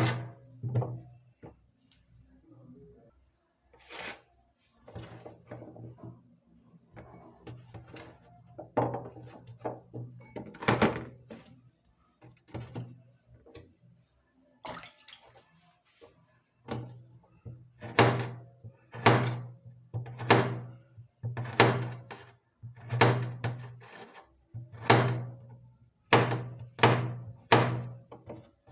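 Repeated thuds of kitchen food preparation, ingredients struck on a hard surface. They are scattered and uneven at first, then from about two-thirds of the way in settle into a steady run of heavy strikes about one a second.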